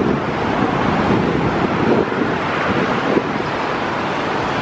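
Steady road traffic passing on a busy city street, with wind buffeting the microphone.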